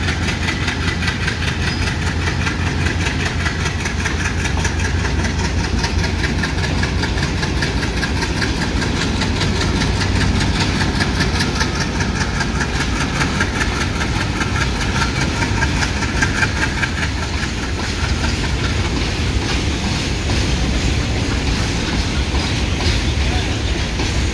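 Alco diesel locomotive's engine running as it hauls a loaded covered-wagon freight train past, with the rumble and clatter of the wagons' wheels on the rails.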